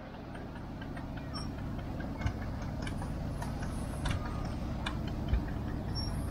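Antique farm tractors driving slowly past in a line, their engines running steadily at low speed, with scattered light clicks.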